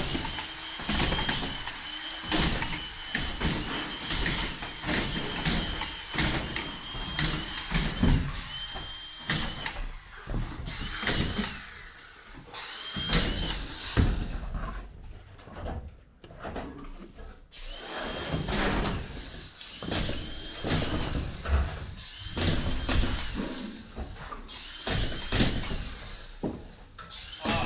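Power screw gun driving drywall screws in many short runs, each a brief motor whine, with pauses in between and frequent knocks and clatter of work on the boards.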